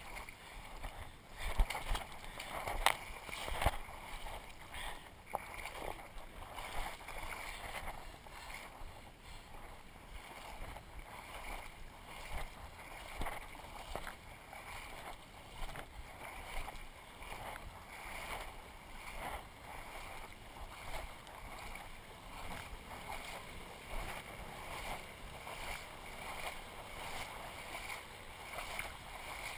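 Water sloshing and splashing in uneven surges as someone wades through a shallow stream, with a few sharper knocks in the first few seconds.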